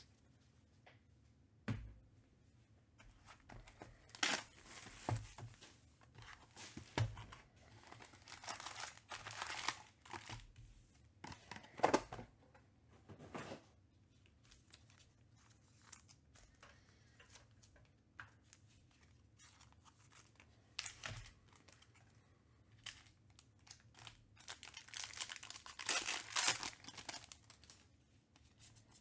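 Trading-card pack wrappers being torn open and crinkled, in several separate bursts, the longest near the end.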